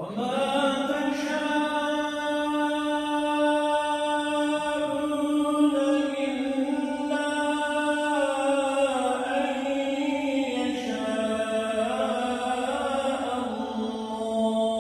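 A man reciting the Quran in a melodic chant, starting suddenly and holding long, ornamented notes that echo in the large domed mosque; the line wavers in the middle and settles on a lower sustained note near the end.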